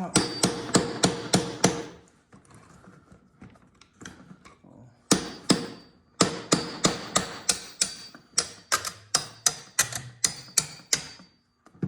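Hammer tapping repeatedly on a Ridgid toolbox part, knocking it into place. A quick run of strikes, a pause, then a steady run of about three to four strikes a second that stops shortly before the end.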